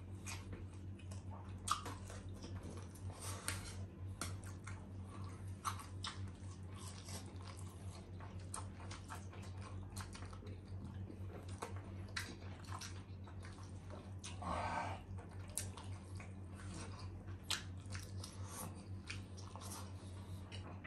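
Close-miked eating: chewing of rice, sausage and chicken nuggets with mouth noises, and a spoon and fork clicking against bowls and a plate, over a steady low hum. A short pitched hum, like a voice, sounds about three-quarters of the way through.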